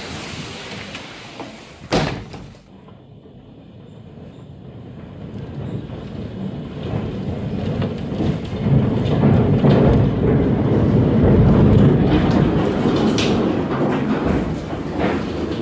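Tornado winds heard from inside a house: a sharp bang about two seconds in, then a deep rumbling rush that builds to its loudest in the second half and eases slightly near the end.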